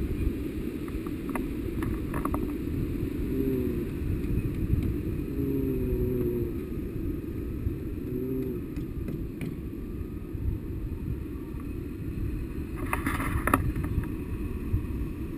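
Wind rushing over the microphone of a camera carried by a tandem paraglider in flight, a steady low rumble. A brief crackle comes through near the end.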